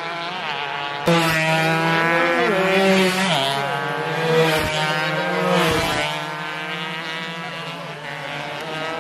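Several road-racing motorcycles revving hard as they race along the street, the engines' pitch rising and falling with throttle and gear changes. The engines get louder about a second in, and the pitch drops sharply a few times near the middle.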